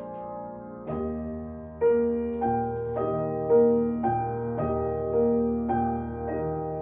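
Solo piano playing a slow, lyrical passage: chords and melody notes struck about twice a second over held bass notes.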